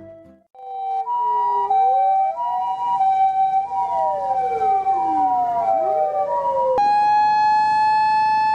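Several emergency-vehicle sirens sound together: a two-tone hi-lo siren switches back and forth steadily while wailing sirens sweep up and down in pitch. About seven seconds in, they cut abruptly to one steady siren tone.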